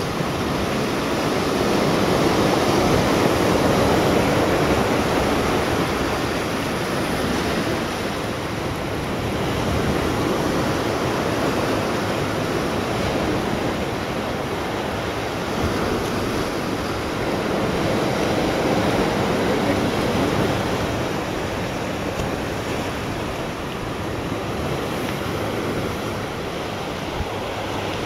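Sea surf washing on the shore: a steady rushing that swells and eases every several seconds.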